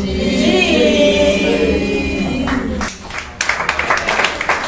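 A group of voices sings a short held phrase together, then clapping breaks out about three and a half seconds in.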